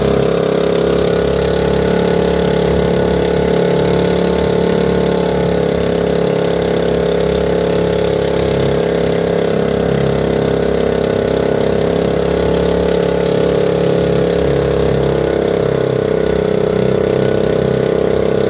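Engine of a motorized outrigger boat (bangka) running at a steady speed, one even drone that does not change, under a constant hiss of water rushing past the hull.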